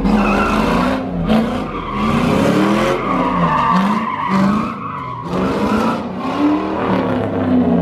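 Ford Mustang doing donuts: the engine revs up and down about once a second while the rear tyres squeal steadily as they spin and slide.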